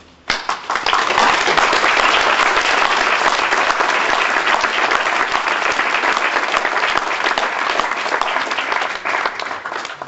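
Audience applauding: the clapping breaks out suddenly just after the start, holds steady, then thins out near the end.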